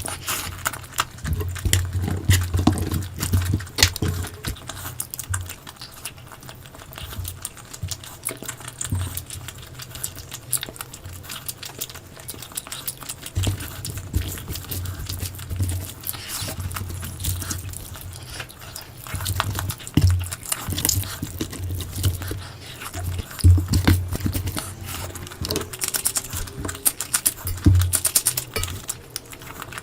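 Close-miked eating sounds of a big curry-and-meat meal: wet chewing and smacking with irregular clicks and repeated low thumps of big bites.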